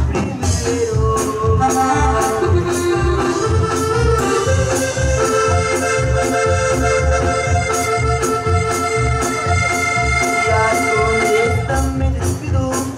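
A live dance band plays an instrumental passage of Latin dance music. A held-note melody runs over bass and drums with a steady beat of about two strokes a second.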